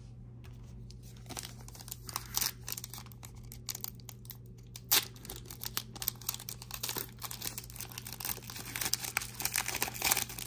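A foil 2023 Panini Prizm football card pack being torn open and crinkled by hand: irregular sharp crackles and rips that start about a second in and come thicker toward the end.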